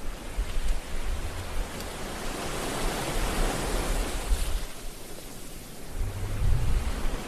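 Sea surf washing in on a beach: a steady hiss of breaking waves that swells a little midway, with wind rumbling on the microphone.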